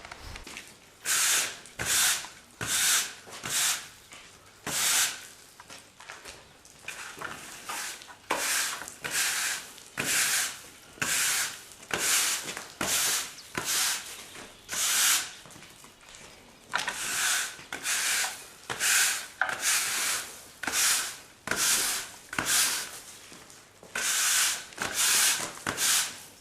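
Repeated rasping, scraping strokes, roughly one a second, each a short hiss with brief pauses between them, in the manner of hand sanding or scrubbing.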